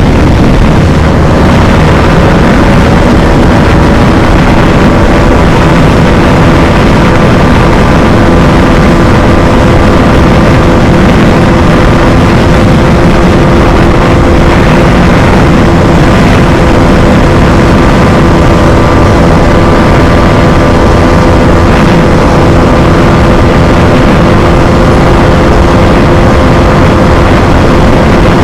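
Bajaj Dominar 250's single-cylinder engine held at high revs in fifth gear at near top speed, a steady drone that barely changes pitch, under heavy wind rush on the microphone.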